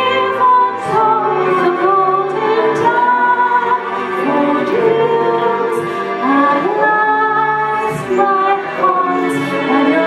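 Woman singing a slow ballad solo over instrumental accompaniment, holding long notes that bend between pitches.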